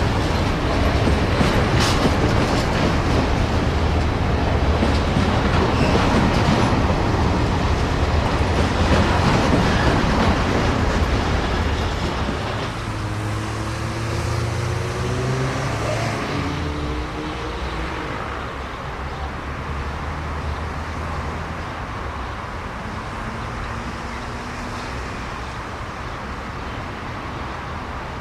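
Freight train passing: a heavy rumble of wheels on the rails with a few sharp clicks. After about twelve seconds the rumble eases, and a pitched engine hum slides up and down as the sound slowly fades.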